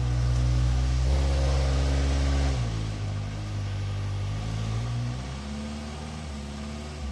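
Off-road trial vehicle's engine held at high revs, then easing off about two and a half seconds in and settling lower again around five seconds.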